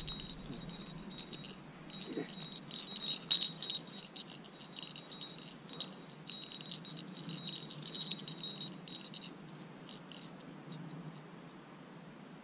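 A small bell on a hunting dog's collar jingles in stretches as the dog moves through the grass. It goes quiet for the last few seconds.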